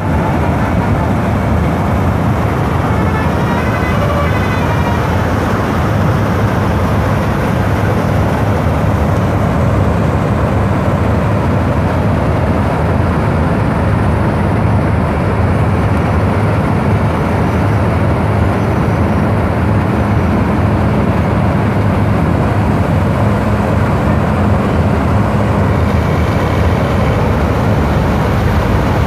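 Combine harvester engines running steadily, a loud continuous engine noise with a deep hum. Brief high-pitched tones sound over it about three to five seconds in.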